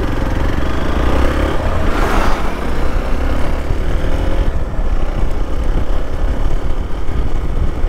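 Motorcycle on the move: the engine runs under a heavy, steady wind rumble on the microphone.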